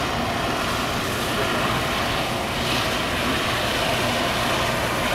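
Helium gas venting through the roof quench vent of a quenched 4.7 T Varian superconducting magnet: a steady rushing noise as the magnet's liquid helium boils off.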